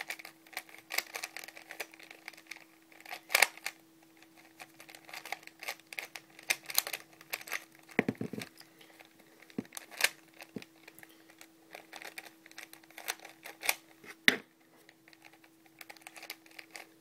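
Plastic clicking and clacking of a homemade 3x4x5 puzzle cube's layers being turned quickly during a scramble, in irregular runs of clicks with a few louder snaps. A faint steady hum runs underneath.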